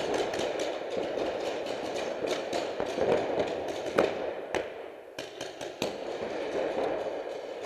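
Paintball markers firing quick strings of shots, several pops a second, in an indoor hall. The pops thin out to a few sharper single shots about four to six seconds in.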